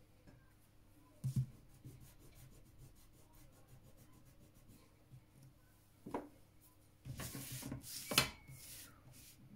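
Clear plastic set squares and a ruler handled on drawing paper: a dull thump about a second in, a knock past the middle, then a couple of seconds of plastic sliding and rubbing over the paper with a sharp click near the end.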